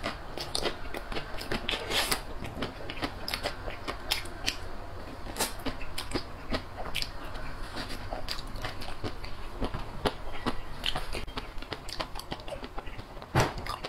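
Close-miked chewing and crunching of a frozen chocolate-coated treat on a stick: many small irregular crackles and clicks of the hard chocolate shell being chewed, with one louder bite near the end.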